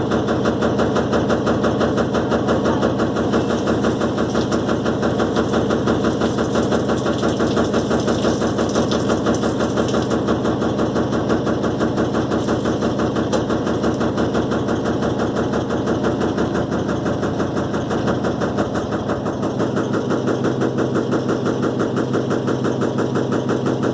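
Electrolux LTE12 washing machine in its spin cycle, the drum turning fast with a steady, rapid pulsing hum and rattle. The deepest part of the hum falls away a little after two-thirds of the way through.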